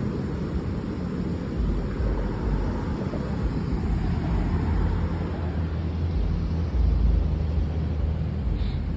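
Wind buffeting the phone's microphone outdoors: a steady low rumble with uneven gusts, strongest about two seconds in and near seven seconds.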